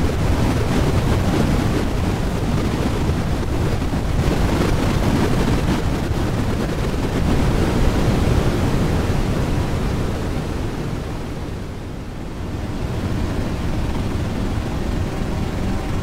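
Granulizer granular-synthesis plugin playing back a sample as a dense, noisy wash with heavy low end and no clear pitch. The wash dips in level briefly about twelve seconds in.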